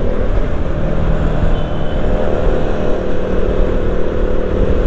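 Motorcycle engine running at a steady cruise while riding, a constant engine hum over low wind and road rumble.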